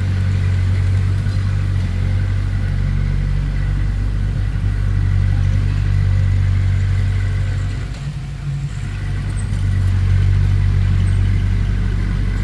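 Heavy diesel engine running steadily under load, easing off briefly about eight seconds in and then picking up again.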